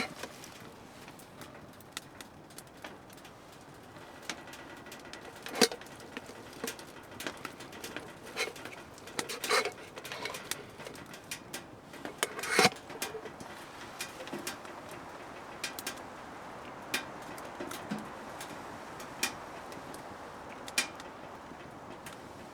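Scattered sharp clicks and knocks from handling camp cooking gear and food over a steady background hiss. The loudest knocks come about a third and halfway through.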